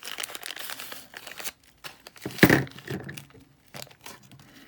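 Plastic packaging crinkling and tearing as a small drill-bit case is unwrapped, with one sharp, loud snap about two and a half seconds in.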